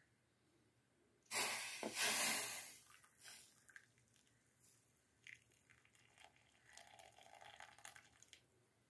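Hot tea poured from a steel pot through a plastic tea strainer into a steel tumbler: a splashing pour lasting about a second and a half, then faint trickling and dripping.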